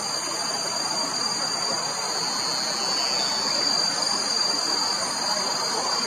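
Forest insect chorus: several unbroken high, shrill pitches from cicadas or crickets, over an even, steady rushing noise.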